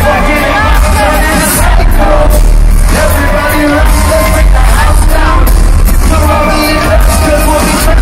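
Loud live concert music with singing over a heavy, steady bass.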